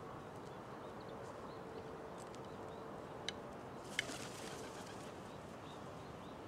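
Crows feeding from ceramic dishes: a sharp tap of a bill on a dish about three seconds in and another about four seconds in, the second followed by a brief rush of wingbeats as one crow takes off. Otherwise a steady low hiss.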